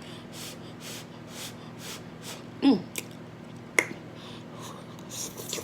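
A person breathing in sharp, quick puffs of air through the mouth to cool a tongue burning from spicy noodles, with one short falling moan about halfway through. A sharp click follows a second later.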